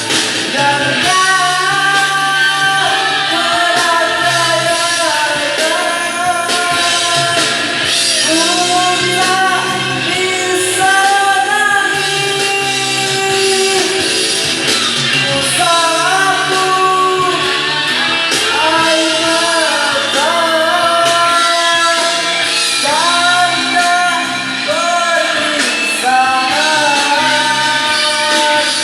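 A voice singing a melody with long held notes over band accompaniment with guitar.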